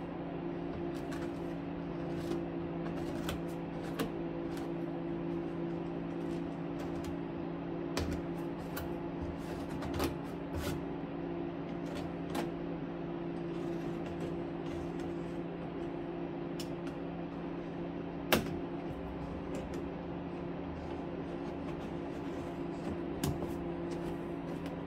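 Box cutter blade scraping and nicking plastic burrs off the edges of hole-sawn holes in a plastic tote lid: scattered light scrapes and clicks, with one sharper click about 18 seconds in. A steady low hum runs underneath.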